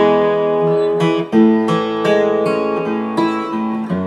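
Gibson J-50 acoustic guitar playing open-position chords, the notes ringing into one another, amplified through its newly installed K&K Mini pickup into an amplifier.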